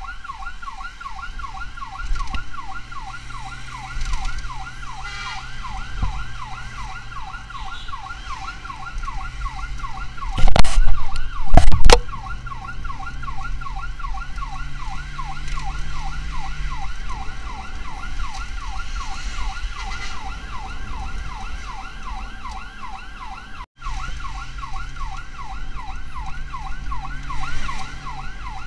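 Emergency vehicle siren on a fast yelp, its pitch rising and falling several times a second, over a low engine hum. About ten seconds in, two very loud bursts, each under a second, drown it out.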